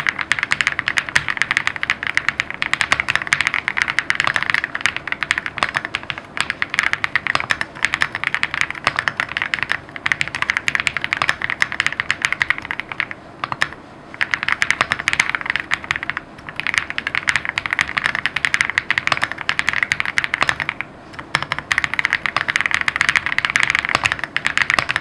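Fast, continuous typing on a Lucky65 v2 custom mechanical keyboard with lubed Kang White v3 linear switches: a dense run of keystroke clacks, broken by a few brief pauses.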